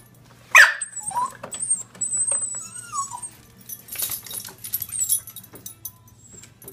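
Small long-haired dog giving one sharp bark about half a second in, then whining and whimpering in thin sliding high-pitched tones: the dog is frightened of a printer. A steady low hum runs underneath.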